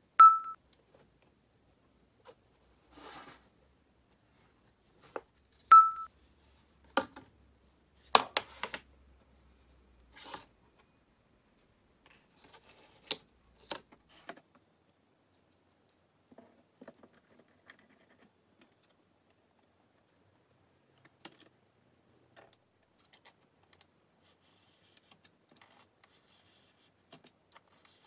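Scattered light knocks, clicks and rubs of parts being handled and set down on an MDF board, with aluminium angle strips and plastic sheets being laid out and positioned; the handling is busiest in the first fifteen seconds and sparse after. Two short high beeps, one at the very start and one about six seconds in, are the loudest sounds.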